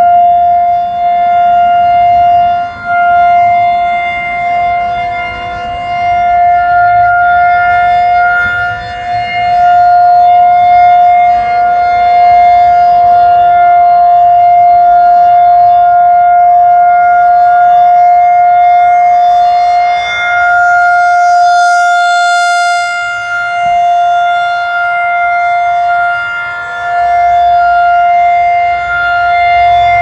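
Federal Signal 2001-130 rotating siren sounding a steady, single-pitch alert tone during its monthly test. The tone swells and fades in loudness as the horn turns toward and away.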